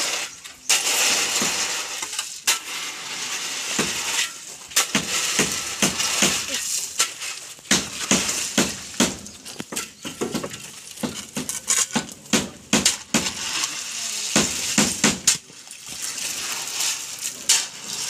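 A steel shovel scraping and scooping through wet gravel, the stones crunching and clinking in many irregular strokes, as gravel and water are mixed by hand for concrete.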